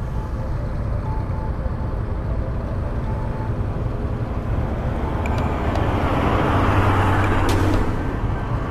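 Road traffic: a steady low rumble, with an oncoming motor vehicle approaching and passing close by about six to eight seconds in, the loudest moment.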